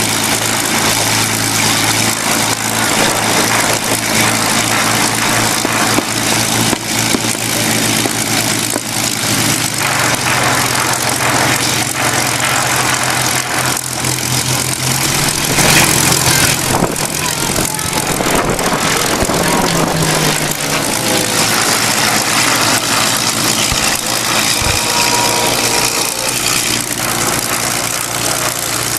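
Supermarine Spitfire's Rolls-Royce Merlin V12 engine running on the ground at low revs as the fighter taxis. Its note rises about ten seconds in and surges briefly at its loudest around the middle.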